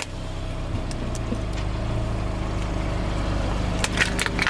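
Car engine running steadily as the car creeps forward at low speed. Near the end come several sharp cracks and snaps as the tyre rolls over and crushes plastic toy soldiers.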